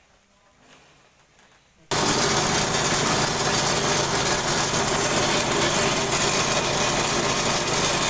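Faint for about two seconds, then a multi-function chopper machine cuts in suddenly, loud, and runs steadily with an even, rushing mechanical noise.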